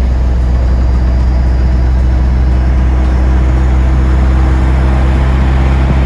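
Loud, steady low drone of a moving road vehicle heard from inside the cabin: engine hum and road noise, unchanging throughout.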